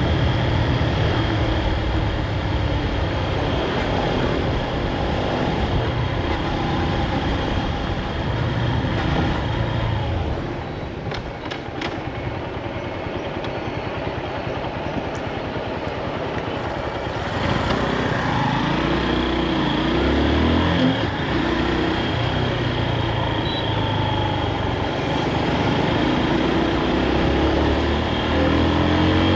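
Honda CB223S's 223 cc single-cylinder, air-cooled four-stroke engine running while the bike is ridden. It drops back to a quieter, lower run in the middle, then pulls away again with the revs rising in several pulls through the second half.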